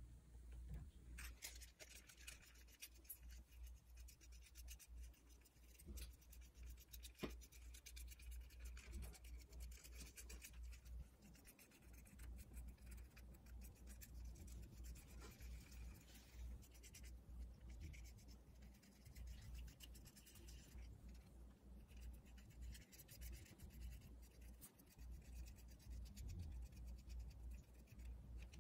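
Faint scratchy strokes of a paintbrush, first mixing paint on a palette, then brushing paint onto a paper-pulp egg-carton cup, over a low steady hum.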